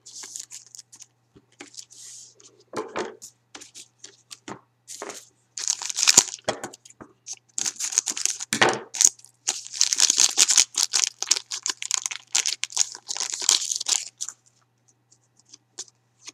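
Foil wrapper of a Panini Titanium hockey card pack crinkling and crackling as it is snipped open with scissors, with cards handled. The crinkling is heaviest from about the middle until a couple of seconds before the end.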